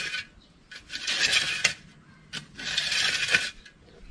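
Short-handled spade digging into stony garden soil: gritty scraping strokes, two long ones of about a second each with pauses between, as the blade cuts in and lifts the dirt.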